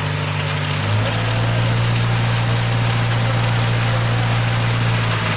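Engine of a self-loading concrete mixer running steadily, with a constant hiss over the hum; its pitch steps up slightly about a second in.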